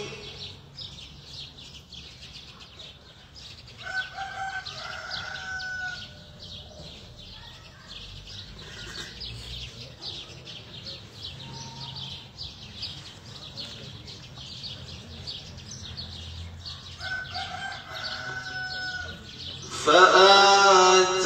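Small birds chirping steadily, with a rooster crowing twice, about four seconds in and again near the end. Just before the end a man's voice loudly resumes chanting a devotional hymn (ilahi).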